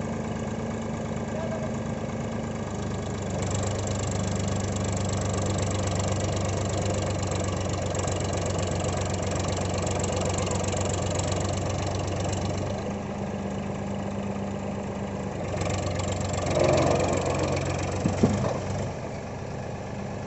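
Powertrac Euro tractor's diesel engine working hard as the tractor is driven through deep mud. The revs rise a few seconds in, ease off about two-thirds of the way through, then climb again before falling back to idle near the end, with a sharp knock just before the drop.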